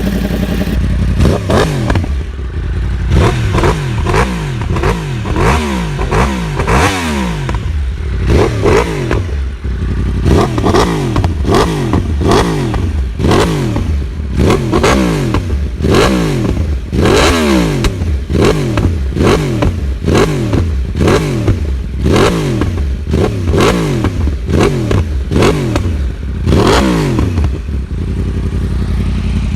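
Yamaha R1's crossplane inline-four, fitted with an aftermarket exhaust, being free-revved with repeated sharp throttle blips, about one a second, each rev rising quickly and falling back toward idle, with crackle on the overrun.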